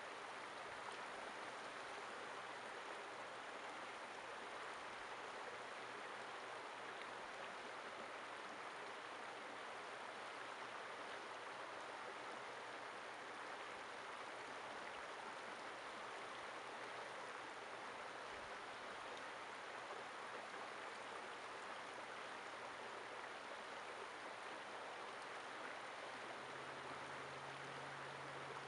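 Shallow creek running over rocks: a steady, even rushing of water. A faint low hum joins in near the end.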